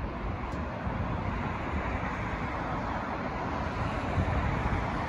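Steady rumble of city road traffic with wind buffeting the microphone, growing a little louder about four seconds in.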